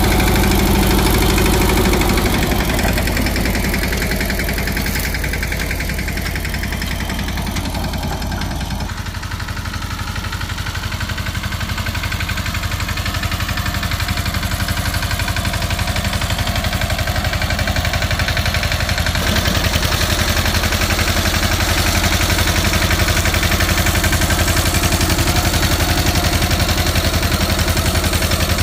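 Swaraj 717 mini tractor's single-cylinder diesel engine running steadily while pulling a loaded trailer. It grows a little fainter as the tractor moves off, then louder again near the end as it comes back close.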